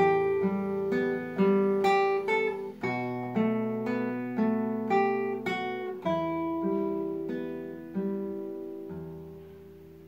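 Solo acoustic guitar playing the end of a slow piece: single plucked notes over bass notes, about two a second. After about six seconds the notes slow down, and a final chord about eight seconds in rings and fades away.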